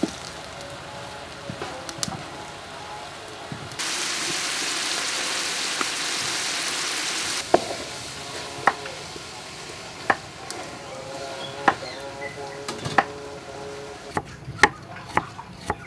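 Food sizzling in hot oil for a few seconds, starting and stopping abruptly, followed by scattered sharp clinks of a metal utensil against a cooking pot.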